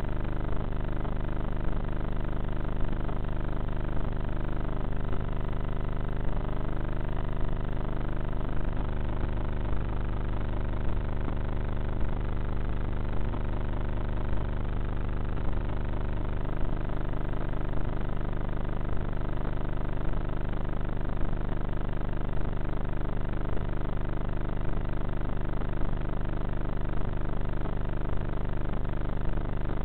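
Electric pusher motor and propeller of a Bixler RC foam plane droning steadily in flight, heard through the onboard camera with wind rush. The pitch shifts up and down a few seconds in, and a light tick repeats about once a second.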